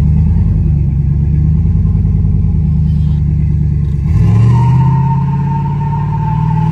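Chevy truck's V8 with a Brian Tooley Racing Truck Norris camshaft, heard from inside the cab, pulling under hard acceleration. About four seconds in, the engine note drops with an automatic upshift and then climbs steadily again as the revs rise.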